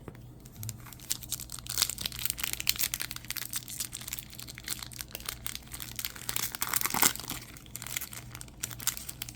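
Plastic trading-card pack wrapper and cards crinkling and rustling as they are handled, an irregular run of sharp crackles.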